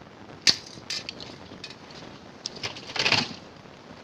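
Sharp knock about half a second in, a few lighter knocks and clicks, and a short clattering burst about three seconds in, from a refrigerator being broken apart by hand for scrap.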